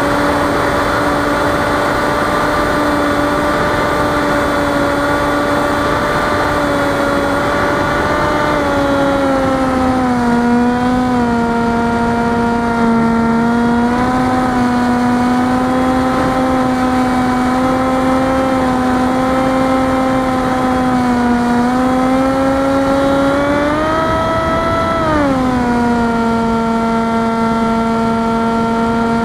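Electric motor and 6-inch propeller of an FPV flying wing running in flight, a steady droning hum over a rushing noise. Its pitch drops about nine seconds in as the throttle eases, rises for a moment about 24 seconds in, then falls back.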